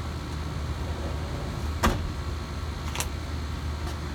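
Steady low outdoor rumble, with three sharp clicks or ticks about a second apart, the first and loudest about two seconds in.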